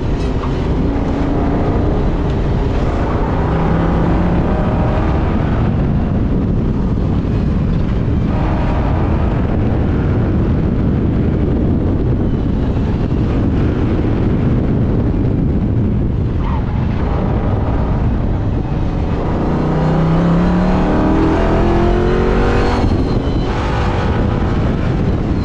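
SN95 Ford Mustang's engine heard from inside the cabin, driven hard at high revs. Its pitch rises and falls as the driver accelerates and lifts between corners, with a clear rising sweep under acceleration near the end.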